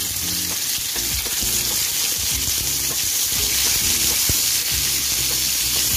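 Chicken drumsticks sizzling steadily in hot oil in a frying pan as more pieces are laid in.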